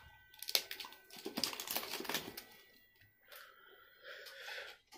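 Plastic screw lid of a MuscleBlaze protein powder tub being twisted open by hand, with irregular crackling and clicking of the plastic, fainter near the end.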